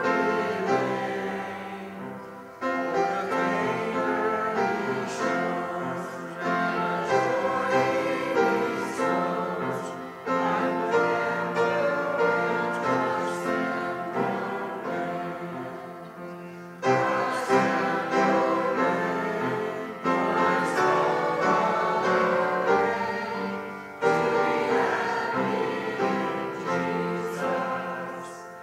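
A church congregation singing a hymn together with keyboard accompaniment, in phrases that each start strongly and fade over a few seconds.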